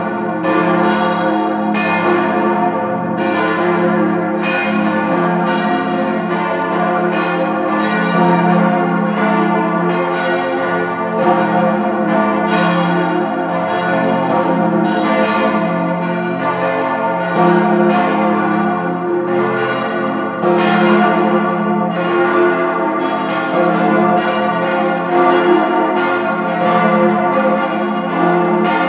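Peal of four large swinging church bells cast by Rüetschi of Aarau in 1904, tuned F° A° c' f' as an F-major chord, the biggest weighing about 8 tonnes. They ring together in a steady stream of overlapping strokes, each with a long hum.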